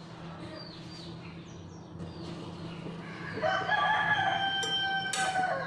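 A rooster crowing once: a single long call lasting about two seconds, starting about three seconds in and cutting off near the end. Faint bird chirps come before it.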